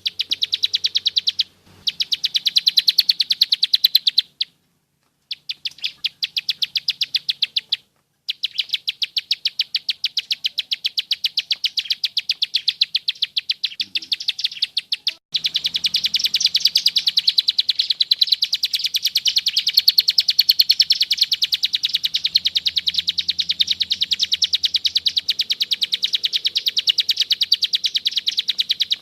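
Plain prinia (ciblek sawah) giving its rapid clicking 'klik' call, a dry high note repeated about ten times a second in long runs. It breaks off briefly a few times in the first half, then runs on without a pause from about halfway.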